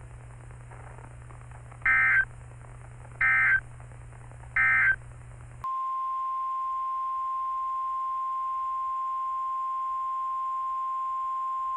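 Three short Emergency Alert System data bursts, about a second and a half apart, over a low hum: the end-of-message code closing a tornado warning. Then a steady single NOAA Weather Radio warning alarm tone, the 1050 Hz tone, sounds for about six seconds, announcing the next warning.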